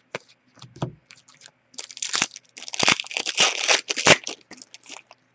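A hockey card pack's wrapper being torn open and crinkled, with a few light clicks at first and a spell of dense crackling from about two to four seconds in.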